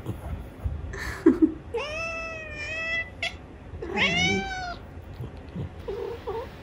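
Domestic cat meowing insistently for food, two long calls about two and four seconds in, the second rising then falling. A short low sound comes about a second in, and a few faint small calls come near the end.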